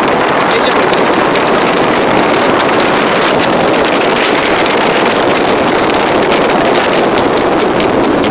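Wind rushing over the microphone and the road noise of a moving car, with the hoofbeats of a trotting Standardbred horse on asphalt coming through faintly as light clicks.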